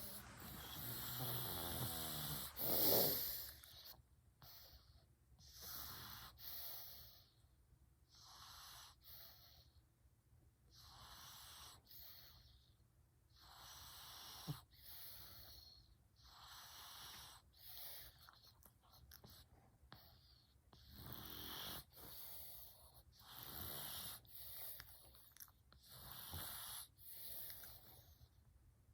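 A sleeping domestic cat snoring, a wheezy, hissy snore on each breath, about one every one and a half to two seconds. The first few seconds are louder, with the loudest snore about three seconds in.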